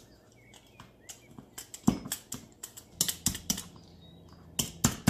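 Raw chicken legs being poked with a utensil, giving quick irregular clicks and taps as it strikes the dish beneath, in short runs of several a second.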